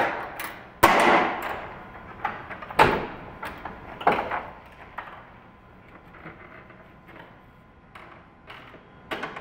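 Airbus H125 engine cowling being unlatched and swung open: several sharp clicks and clunks of the latches and panel, the loudest about a second in, each echoing briefly, then fainter clicks as the cowling is raised.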